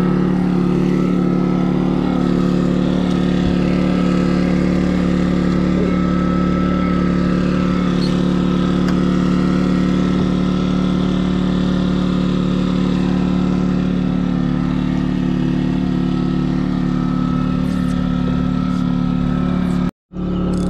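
Boat engine running at a steady speed, a loud even drone with no change in pitch; it cuts off for a moment near the end.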